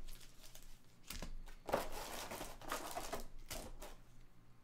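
Crinkling and crackling of foil booster-pack wrappers and plastic packaging being handled, a run of irregular sharp crackles and rustles that thins out near the end.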